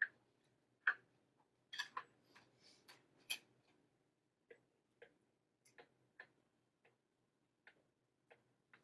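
Faint, irregular clicks and taps of a stylus on a pen tablet during handwriting. Several sharper clicks come in the first few seconds, then lighter ticks every half second or so.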